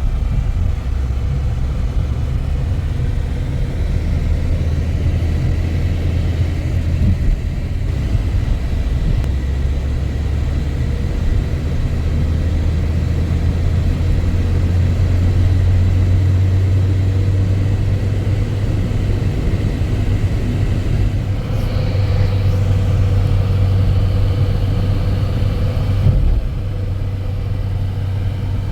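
A motor vehicle's engine running with a steady low drone, as when driving along.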